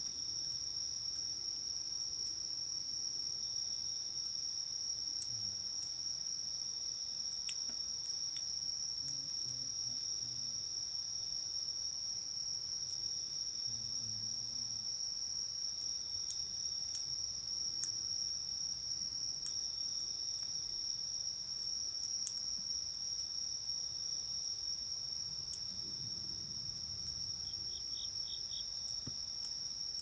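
A steady, high-pitched chorus of night insects trilling without a break, with scattered sharp crackles and pops from a wood campfire.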